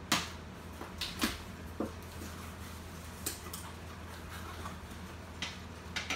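Small cardboard box being cut open with a box cutter: a sharp rip at the start, then a few short scrapes and knocks as the cardboard is sliced and handled, over a steady low hum.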